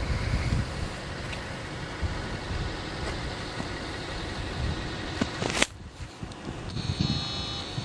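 Wind buffeting the camera microphone in uneven low gusts, with a sharp click about two-thirds of the way through, after which the rumble eases.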